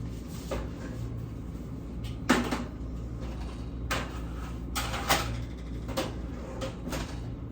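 Knocks and clunks of a kitchen oven being loaded: the oven door handled and a pan of chicken set inside, the loudest clunk about two seconds in, over a steady low hum.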